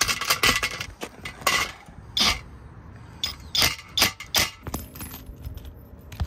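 Irregular sharp metallic clicks and clinks, about a dozen strikes, from mounting hardware and tools being handled against the aluminium solar rail.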